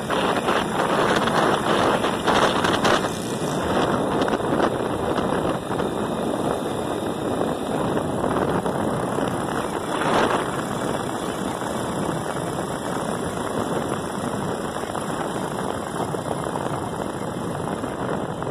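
Wind rushing over the microphone of a moving motorcycle, with the bike's engine running steadily underneath.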